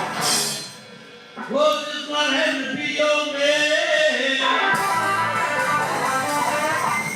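Live blues-rock band playing, led by electric guitar with held, bending notes. The sound drops briefly about a second in, then the band comes back in.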